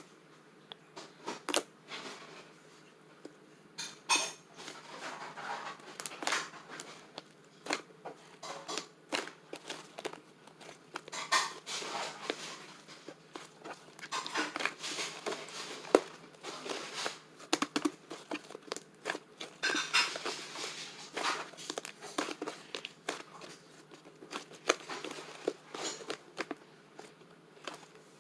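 Slime being squished, pressed and stretched by hand, giving sticky crackles and many sharp pops and clicks at irregular moments.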